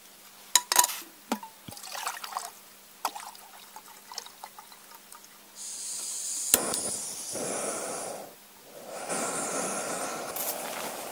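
A few light clicks and knocks of camp cookware, then water being poured in two steady runs with a brief break between them, about six seconds in and again near the end.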